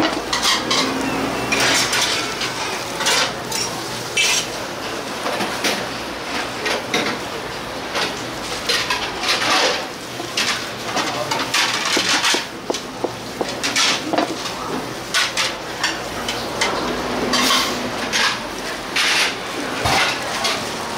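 Irregular clatter of dishes and utensils: many short knocks and clinks, some close together, others a second or more apart.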